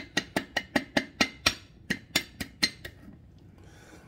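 Quick light taps of a small metal utensil cracking the shell around the top of a soft-boiled egg, about four taps a second, stopping about three seconds in.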